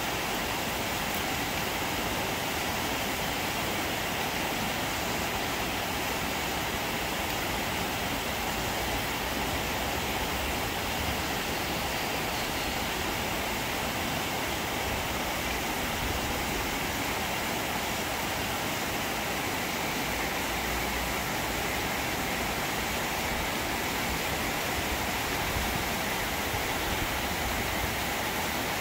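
Steady heavy rain falling on leafy trees and corrugated metal sheeting, an even hiss with no separate drops or breaks.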